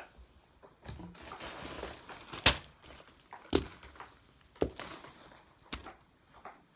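Fidget toys being handled and set down on a hard surface: a brief rustle, then four sharp knocks about a second apart, the first the loudest.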